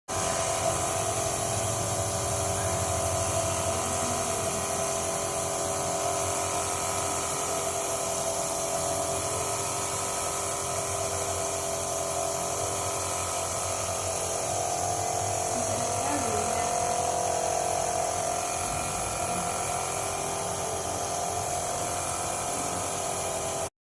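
A nebulizer's compressor running steadily, a constant mechanical hum, during an infant's breathing treatment.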